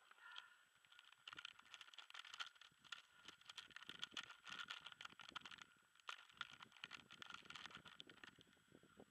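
Faint, irregular crackling and rustling close to the microphone as a landed paraglider pilot's gear shifts on the snow, thickest through the middle and easing near the end.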